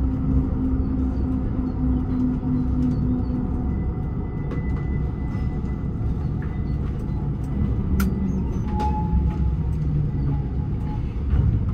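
Steady low drone of city buses and trams standing at a stop, with a few faint held hums and whines and a single sharp click about eight seconds in.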